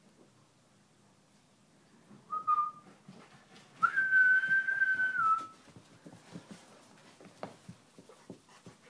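A person whistling two steady notes, a short one and then a longer, louder one that dips slightly at its end, as a dog is called. Short scuffling taps follow as the golden retriever runs in and plays.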